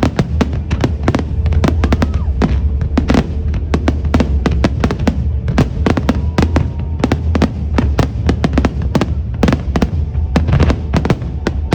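Fireworks going off in a dense, rapid barrage: sharp bursts cracking several times a second over a continuous low rumble.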